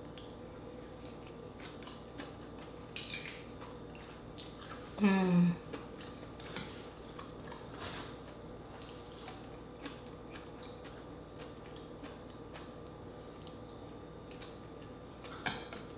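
Quiet eating sounds: chewing of green-lipped mussel and rice, with scattered light clicks of chopsticks and a spoon on the bowls. About five seconds in, a short hum of the voice falling in pitch is the loudest sound.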